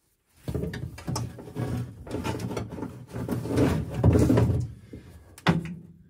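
Rubbing, scraping and knocking as a wiring loom is handled and fed through the car's interior, with a sharp knock near the end.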